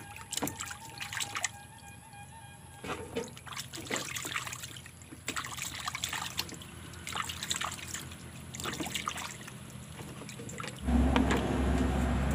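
Hands sloshing and rubbing mangrove clams in a basin of water, with irregular splashes and the shells knocking together as they are scrubbed clean. Near the end a louder steady low hum comes in.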